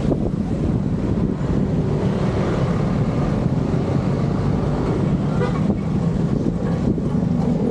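Wind rushing over the microphone of a moving bicycle, with road traffic passing alongside on a busy highway.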